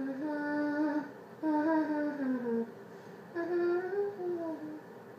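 A person humming a short tune in three phrases, each about a second long; the second phrase slides down in pitch at its end.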